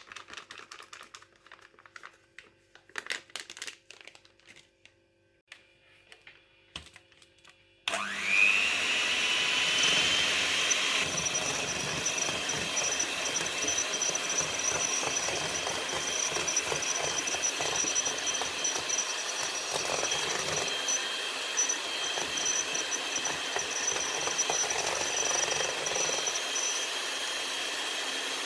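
Light clicks and taps from utensils and a bowl. About eight seconds in, a handheld electric mixer starts up with a rising whine as it spins up, then runs steadily, whipping the mousse mixture.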